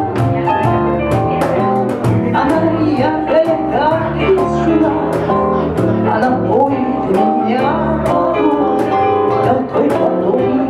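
Live band music: a woman sings over hollow-body electric guitar, electric bass and keyboard, with a steady ticking beat.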